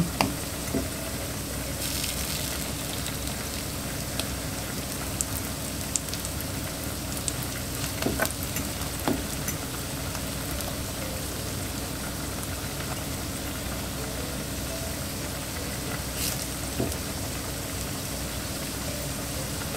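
Plantain slices sizzling steadily as they fry in oil in a nonstick frying pan, with a few light clicks and scrapes of a metal fork turning them over.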